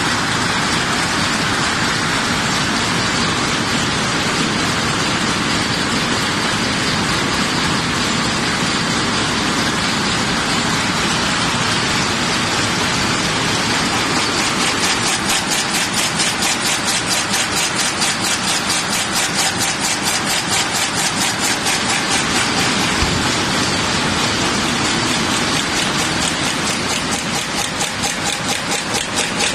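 Double-blow header press forming M5 x 25 screw blanks, running with a loud, steady mechanical clatter. From about halfway through, its strokes come through as an even, rapid knocking, about four a second, in line with its rated 264 pieces a minute.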